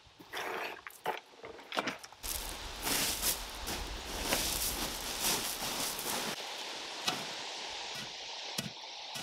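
Footsteps crunching through dry fallen leaves and gravel, with many short clicks and knocks. A low rumble runs under them from about two to six seconds in.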